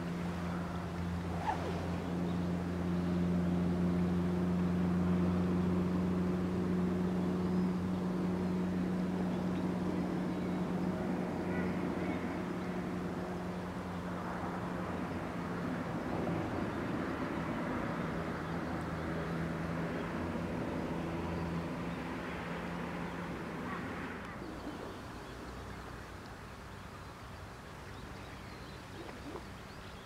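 Steady low hum of a distant engine, holding one pitch with a few overtones, then fading out about three-quarters of the way through.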